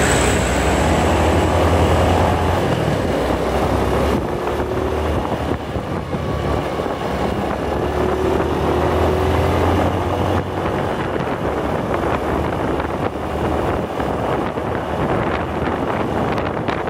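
Wind buffeting the microphone of a moving motorcycle, over steady engine and road noise, with a low hum from traffic nearby easing off about ten seconds in.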